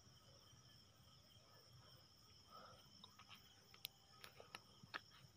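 Near silence: room tone with a faint steady high-pitched whine, and a few faint small clicks in the second half.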